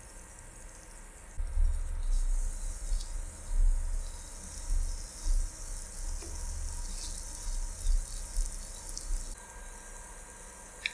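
Spring rolls shallow-frying in vegetable oil in a nonstick pan: a steady high sizzle with scattered small pops and crackles. An uneven low rumble comes in about a second and a half in and fades out near the end.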